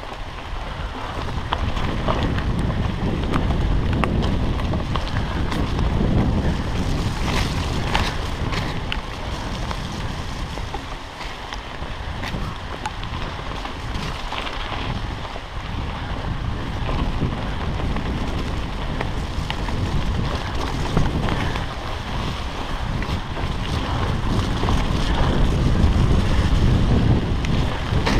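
Wind buffeting a chest-mounted GoPro's microphone during a mountain bike ride, a steady rumbling rush that swells and fades, with a few sharp knocks and rattles from the bike about seven to eight seconds in.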